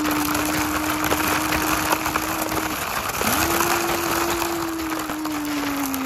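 A voice holding a steady hummed drone in imitation of an engine, breaking off briefly about halfway and starting again, over the gritty crunch of a plastic toy dump truck's wheels rolling on gravel.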